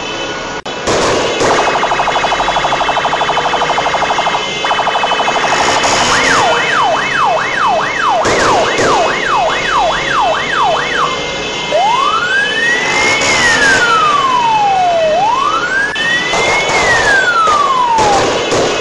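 Electronic vehicle siren cycling through its modes. First a rapid warble for several seconds, then quick rising yelps about two a second, then two slow wails that climb and fall away. Steady vehicle noise runs underneath.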